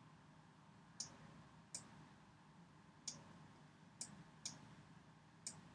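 Computer mouse button clicking six times at uneven intervals, each a short sharp click, over a faint low room hum.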